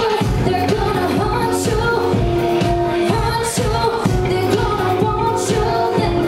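A woman singing a pop song live into a microphone over loud music with a steady beat.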